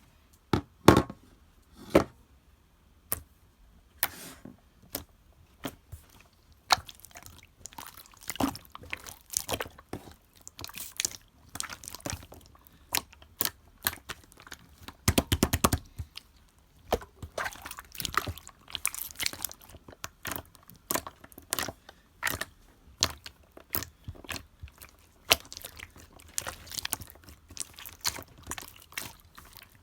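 Clear slime being squeezed and pressed by hand, making an irregular run of sticky clicks and pops, with a dense flurry about fifteen seconds in.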